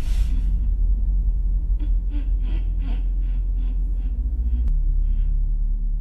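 A low rumbling drone under a woman's quiet, breathy laughter: a string of short puffs, about three a second, starting about two seconds in. Near the end a click comes as the drone changes.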